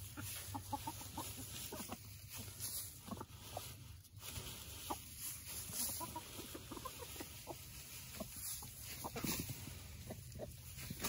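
Backyard hens clucking in many short, scattered calls as the flock forages in fresh hay.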